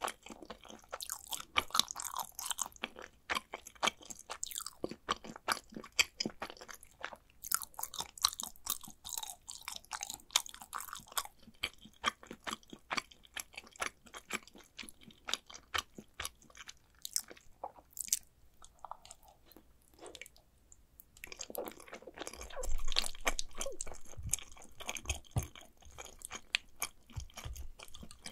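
Close-miked chewing of mac and cheese: a steady stream of sharp, wet mouth clicks and small crunches. About three quarters of the way through it gets louder and denser, with low thuds.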